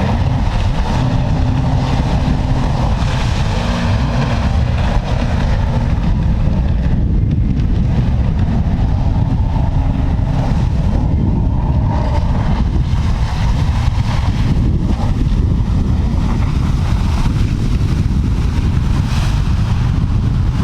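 Jet ski engine running steadily on the water, with wind buffeting the microphone.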